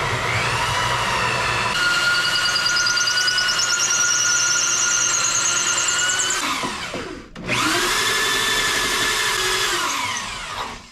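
Electric drill driving a hole saw through wood, the motor whining at speed. It winds down and stops about six and a half seconds in, starts again a moment later, and winds down again near the end.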